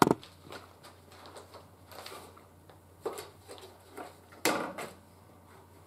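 A quiet room with a few faint rustles and taps, then one louder rustling noise lasting under half a second about four and a half seconds in.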